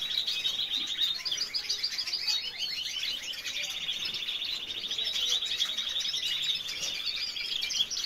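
Spanish Timbrado canaries singing: continuous fast, rolling trills of high notes, with one long even trill through the middle.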